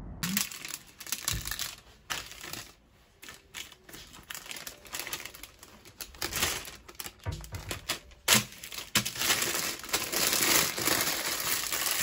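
An empty Walkers Baked crisps packet being handled and crumpled up by hand: irregular crackling and crinkling of the plastic film. It turns louder and more continuous over the last few seconds.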